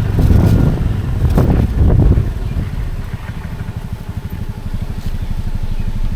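Motorcycle engine with wind noise on the microphone, easing off about two seconds in and settling to a steady, even idle.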